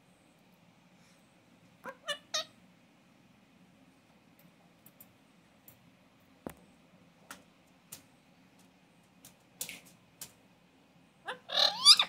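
Pet parakeet calling: three quick short calls about two seconds in, then a louder, longer call rising in pitch near the end, with a few scattered clicks and taps between them.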